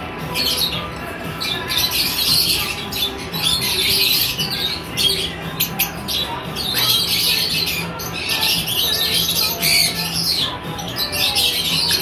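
A flock of lovebirds chattering and screeching, with many high-pitched calls overlapping constantly and rising and falling in bouts.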